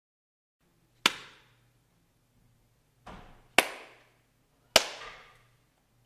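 Sharp cracks: three loud ones spaced a second or more apart, with a softer one just before the second, each fading out over about half a second.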